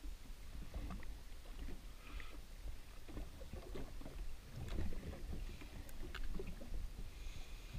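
Quiet water lapping against the hull of a drifting jet ski, with a few faint clicks and knocks scattered through.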